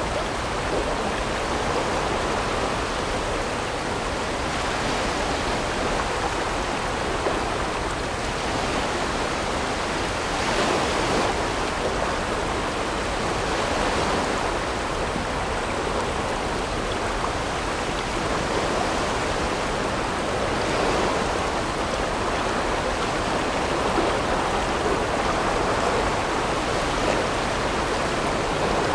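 River water rushing steadily around a whitewater raft, an even hiss that swells briefly now and then.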